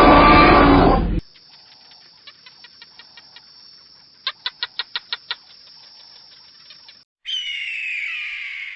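A loud rough animal roar cuts off about a second in. Then comes quiet bird chirping, with a quick run of about eight sharp chirps midway. Near the end, a louder bird call slides down in pitch.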